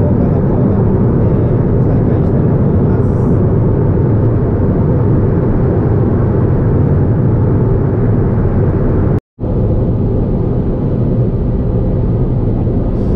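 Honda S660 driving at cruising speed, its small turbocharged three-cylinder engine and tyre noise heard as a steady drone inside the cabin. The sound cuts out for a moment about nine seconds in.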